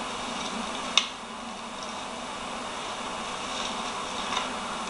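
Steady background hiss with one sharp click about a second in and a fainter click near the end, from gear being handled by hand.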